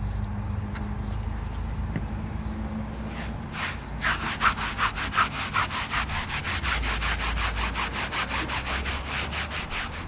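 Stiff brush scrubbing upholstery cleaner into a car's fabric floor mat. The rapid back-and-forth strokes start about four seconds in, about five or six a second.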